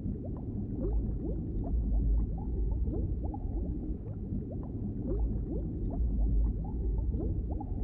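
Underwater bubbling: a muffled low rumble full of small, quick rising bubble blips.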